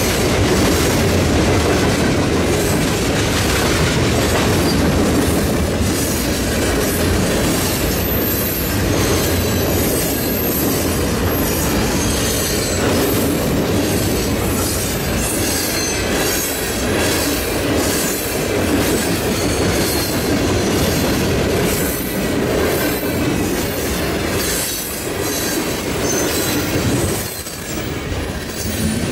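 A freight train rolling past close by, its wheels clicking rhythmically over the rail joints, with a faint high wheel squeal about a third of the way through.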